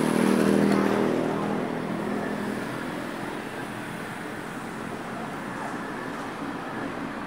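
A motor vehicle's engine passes close by, loudest about half a second in and fading over the next couple of seconds. Steady road traffic noise follows.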